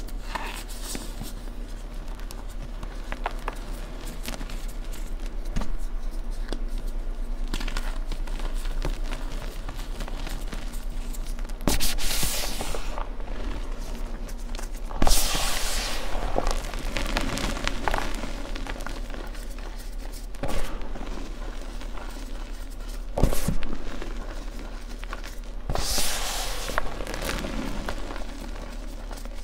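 Hands crushing and digging through loose gym chalk powder: soft crunching and hissing of the powder, with a few louder crunching swells spread through.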